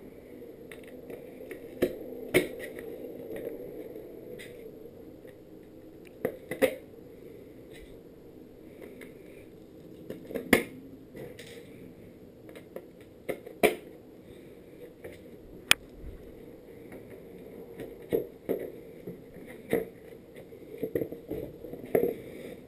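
Skateboard parts being handled during assembly: scattered knocks and sharp clicks from the deck, trucks and hardware, with a quicker run of knocks near the end.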